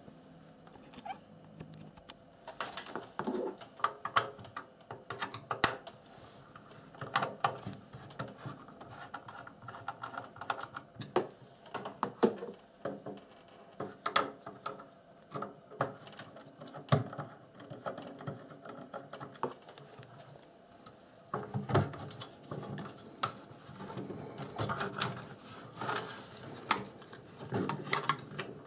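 A screwdriver turning the cover screws of a perforated sheet-metal multimeter case, with irregular clicks, scrapes and light metal knocks as the screws are worked and the cover is handled. The handling gets busier near the end.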